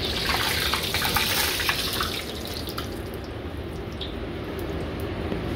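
Eggs deep-frying in hot oil in a wok, held in a wire-mesh strainer: a steady sizzle that is loudest for the first two seconds and then eases off.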